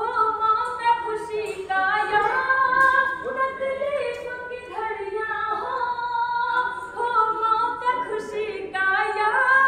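A woman singing a verse of Hindi-Urdu poetry as a sung recitation (tarannum), with long notes held about a second each and stepping up and down in pitch.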